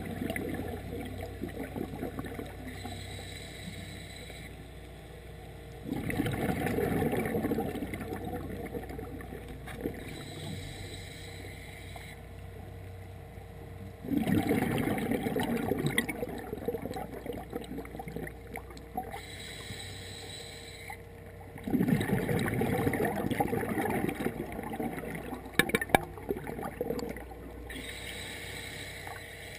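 Scuba diver's regulator breathing underwater: a burst of exhaled bubbles about every eight seconds, each lasting about two seconds, with a quieter hissing inhale between them. A few sharp clicks come about three-quarters of the way through.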